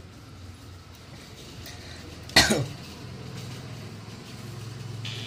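One short, sharp cough about two and a half seconds in, over faint background hum.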